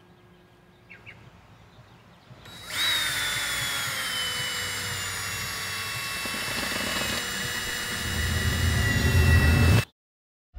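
Cordless drill boring a hole through quarter-inch glass: a steady motor whine starts about three seconds in, its pitch sagging slowly as the bit works through the glass, then cuts off suddenly near the end.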